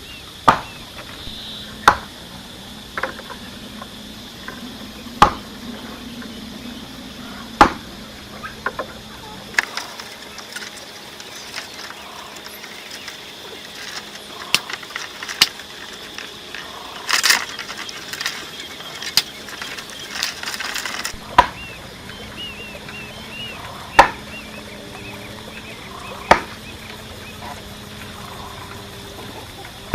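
Bamboo being cut and worked with a blade by hand: a dozen or so sharp knocks a couple of seconds apart, with lighter tapping and rustling between them.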